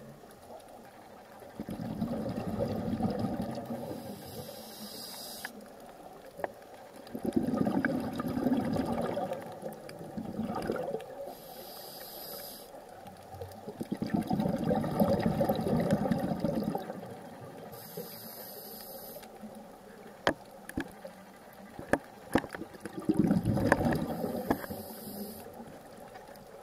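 Scuba diver's breathing heard underwater: four rumbling bursts of exhaled bubbles from the regulator, about every six to eight seconds, with fainter hiss of inhalation between them and a few sharp clicks.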